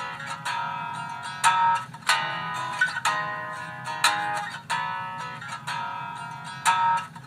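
Acoustic guitar instrumental beat: single plucked notes, each left ringing, picked out slowly at roughly one note a second.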